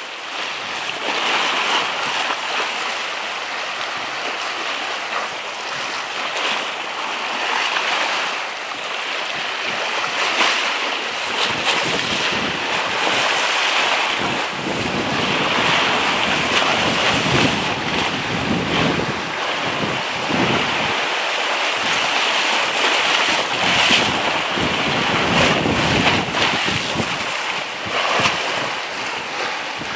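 Waves washing on a rocky shore under strong, gusty wind that buffets the microphone, the low wind rumbles coming in heavier gusts from about halfway through.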